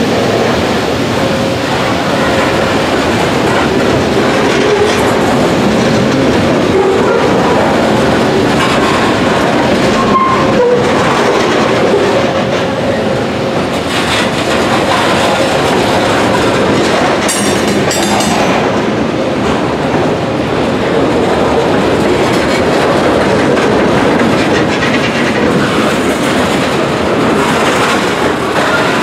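Freight train's covered hopper cars rolling past close by, steel wheels rumbling and clicking over the rail joints in a steady, continuous passage.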